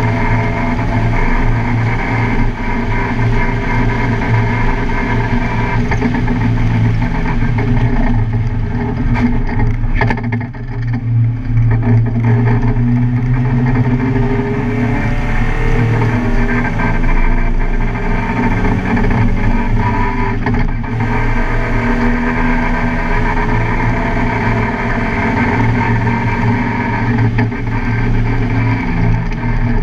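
Car engine running hard on a race track, its pitch rising and falling as it accelerates and shifts, with a brief drop in loudness about ten seconds in.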